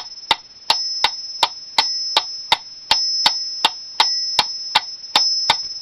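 Donner DPM-1 wind-up mechanical metronome ticking at a fast steady tempo, about 2.7 ticks a second, with its small bell faintly ringing on the first beat of each measure.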